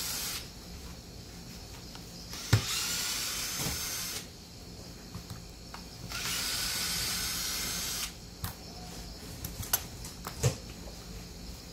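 Cordless drill-driver running in three short runs as it drives the screws on the blade head of an electric pruning shear, the whine rising as each run starts. A sharp click comes just before the second run, and small clicks and taps of metal parts being handled follow near the end.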